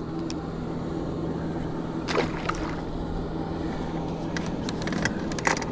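Water sloshing around a fishing boat's hull under a steady low hum. A few short, sharp handling sounds come about two seconds in and again near the end.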